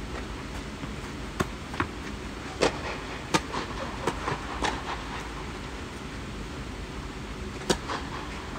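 Tennis ball being played on a clay court: a series of sharp pops in the first half, and a louder racket strike on a serve near the end, over a steady low hum.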